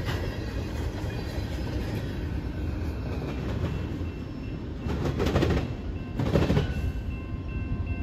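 Rear of a freight train rolling past: a steady rumble of steel wheels on rail, with two louder bursts of wheel clatter about a second apart in the second half as the wheel sets cross track joints.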